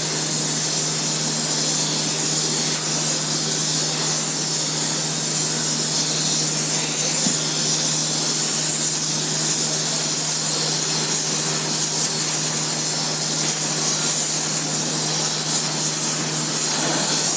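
Propane torch hissing steadily as it preheats a joint in 1/4-inch-wall aluminum square tubing before welding.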